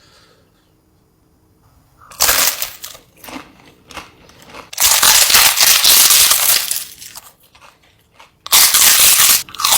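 Giant spicy chip being bitten and crunched, loud crackling crunches in three bursts, the middle one the longest.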